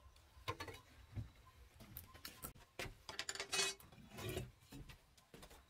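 Hand tools handled on wooden planks: light knocks and metallic clinks as a bow saw is picked up, with a quick cluster of clinks about three seconds in.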